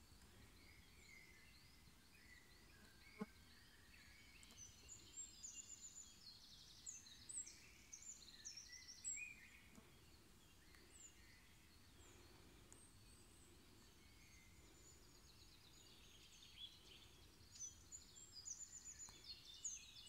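Faint chorus of several songbirds singing: scattered chirps throughout, with bursts of quick trilled phrases from about five to nine seconds in and again near the end. A single sharp click about three seconds in.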